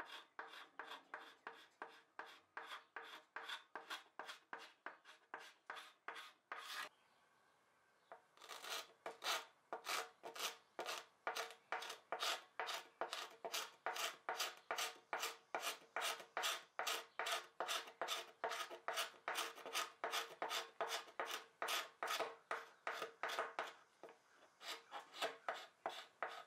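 Hand scraper dragged over a solid walnut dresser top in quick, regular strokes, about two a second, scraping off a stubborn residue under where the drawers sit that the owner thinks could be shellac that collected and got really thick. About seven seconds in, the strokes stop for a second and a half, then resume.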